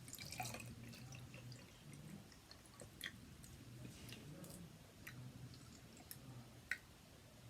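Water being poured out of a small test tube, heard as faint drips with a few light clicks.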